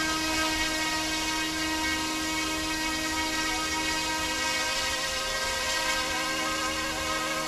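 Battery-powered RC scale UH-60 Black Hawk helicopter (YXZNRC F09-S, 425 mm rotor) hovering: a steady high-pitched whine of its electric motor and rotors, unchanging in pitch.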